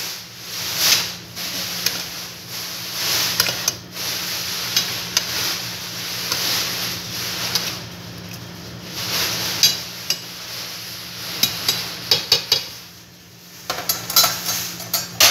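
A spoon stirring chopped bottle gourd and beef in a stainless steel pot, scraping and clinking repeatedly against the pot.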